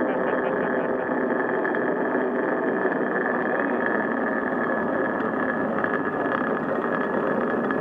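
Pulley wheels of a hand-operated river-crossing cable car rolling along its steel cable: a steady whirring rumble with a thin, constant high tone, as the car runs out over the river.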